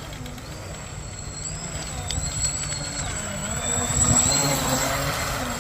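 Electric motor of a 3S Atomic RC catamaran whining as the boat runs on the water, the pitch rising and falling with the throttle, over steady low noise.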